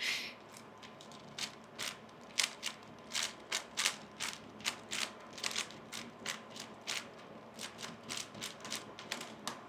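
3x3 Rubik's speedcube being turned fast during a timed solve: an uneven run of sharp plastic clicks, several a second.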